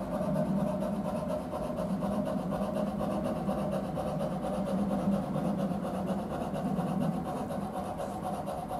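Soundtraxx Tsunami sound decoder in a Bachmann G-scale Climax geared steam locomotive model playing steady, fast steam chuffing through the model's speaker as it runs along the track. A low part of the sound eases off about seven seconds in.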